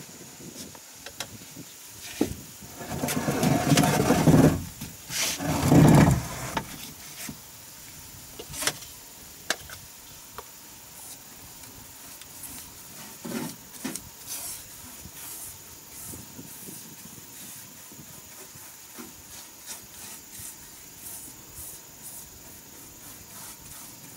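Loud rubbing and scraping on wooden boards in two bouts, around three and five seconds in. After that come quieter scattered ticks and the rub of a paintbrush working along a plank wall. A steady high insect chirr sounds throughout.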